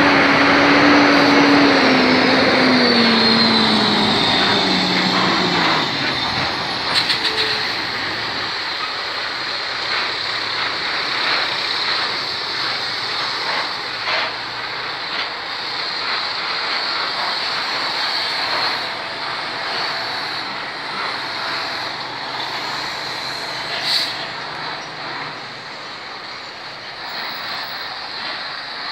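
Heavy truck's diesel engine passing close, its pitch dropping in steps over the first six seconds as it slows. Then it fades away, leaving a steady rushing noise with scattered knocks that grows quieter toward the end.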